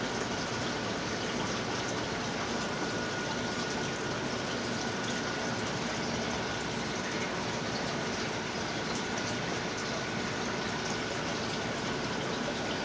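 Aquarium filter and water circulation running: a steady rush of moving water with a faint steady hum from the pump.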